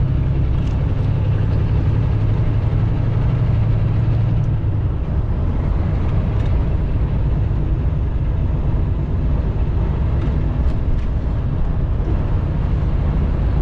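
Semi-truck cab noise while driving: a steady drone of engine and road rumble. A strong low engine hum fades out about four or five seconds in, leaving the rumble of tyres and road.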